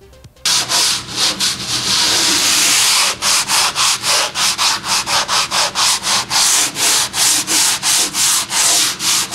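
Old Raptor bed liner on a subwoofer box being sanded by hand with red sandpaper. It starts about half a second in and goes in quick back-and-forth strokes, about four a second from about three seconds in. The old coat is being scuffed so a new coat of bed liner will adhere.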